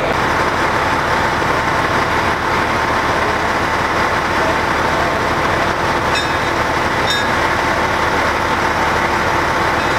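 A vehicle engine idling, an even, unbroken drone with a constant hum.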